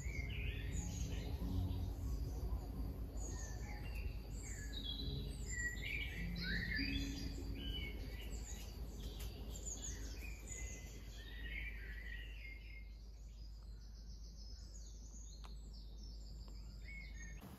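Songbirds singing and chirping in a garden, a busy mix of short calls and trills that thins out after about twelve seconds, over a steady low hum that cuts off just at the end.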